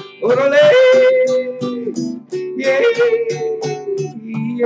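Classical guitar picked in a steady rhythm under a man's voice singing two long held notes, the second sagging slightly in pitch as it ends.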